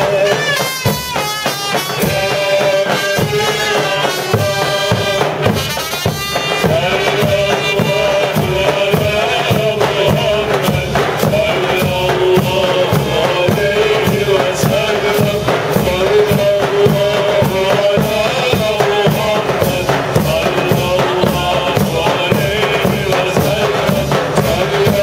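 Ottoman mehter band playing: reedy zurnas carry a melody over a steady beat on the big drums, with cymbals and frame drums.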